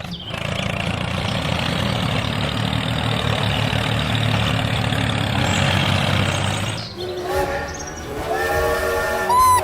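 A vehicle-like motor noise runs steadily and cuts off about seven seconds in. A held tone with several steady pitches follows and lasts to near the end.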